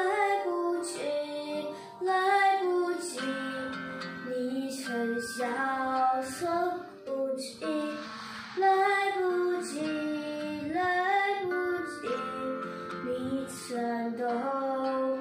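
A young boy singing a slow Mandarin pop song over recorded music accompaniment, his voice carrying the melody in long, held phrases.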